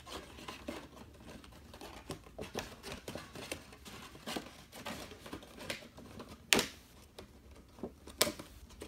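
Cardboard action-figure box and its plastic packaging being handled and pulled apart: irregular rustling and crinkling with light clicks, and two louder sharp snaps in the second half.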